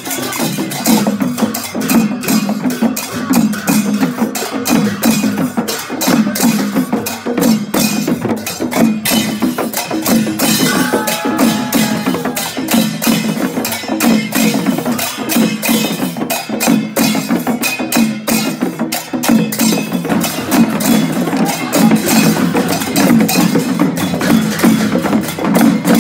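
Procession percussion music: drums beaten together with clashing metal cymbals in a dense, steady rhythm.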